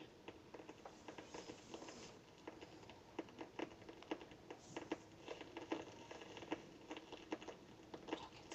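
Faint, irregular small clicks and taps, several a second, over quiet room tone.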